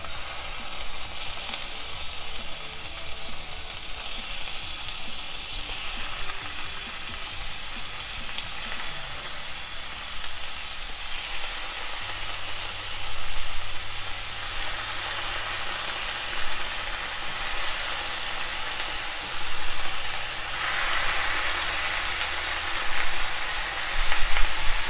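Chicken pieces sizzling in hot oil in a frying pan with the fried shallots and dried red chillies, a steady crackling hiss. It swells louder about halfway through and again near the end.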